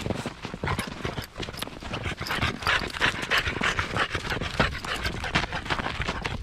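French bulldog snuffling and breathing noisily as it pushes its nose through snow, mixed with irregular crunching of snow, busiest around the middle.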